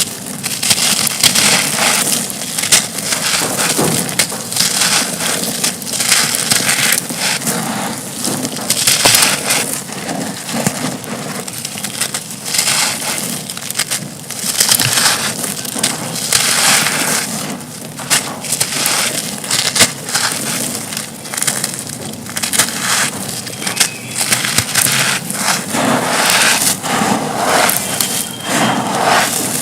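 Dry concrete chunks being crushed and crumbled, a continuous gritty crunching full of small cracks and snaps.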